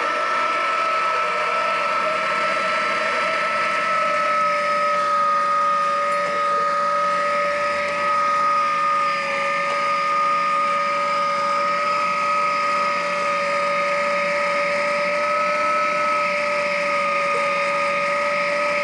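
Electric meat grinder running steadily, a motor whine with two steady tones over a hum. The lower tone drops slightly in pitch about four seconds in.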